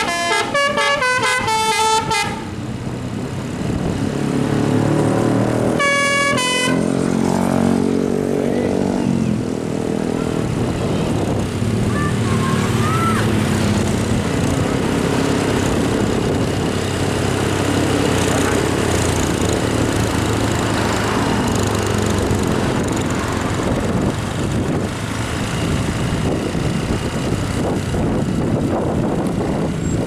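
Multi-tone telolet horn on a Daihatsu Gran Max minivan plays a quick tune of changing notes for about two seconds, then gives one short blast about six seconds in. The rest is engine and street traffic noise.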